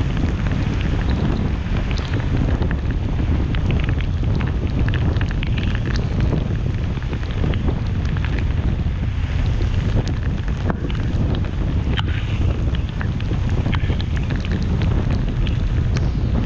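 Steady low rumble of road and wind noise from a car driving on a wet road, with scattered light ticks throughout.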